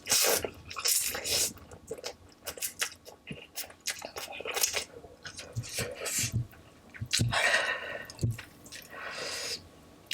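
Someone chewing and slurping 2x spicy instant noodles close to the microphone, in short, irregular wet bursts.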